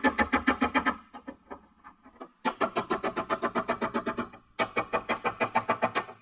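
Background music, a guitar-led track with a quick, even beat. It drops out for over a second about a second in, and briefly again near the end.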